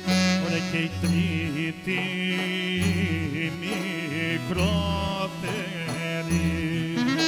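Greek folk music played live: a man sings ornamented lines into a microphone over a clarinet, with a bass note repeating about once a second.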